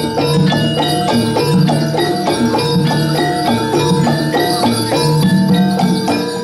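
Music: a fast, even run of short pitched notes at a steady beat.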